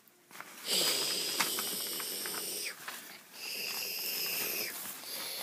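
A person's voice makes two long, breathy hissing noises as a dinosaur's sound, the first about two seconds long and the second shorter, while crumpled paper crinkles.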